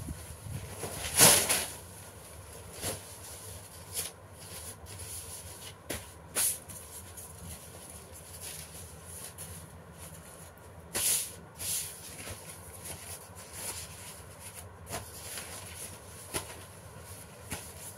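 Paper being folded and handled by hand: irregular rustles and crinkles, loudest about a second in and again around eleven seconds, over a steady hiss.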